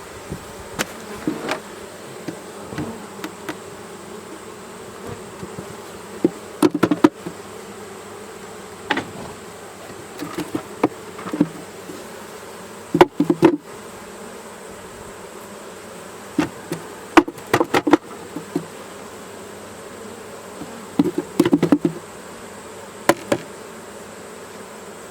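Many honeybees buzzing steadily around an opened hive, with clusters of sharp knocks and taps scattered throughout, loudest about a quarter, half and two-thirds of the way through.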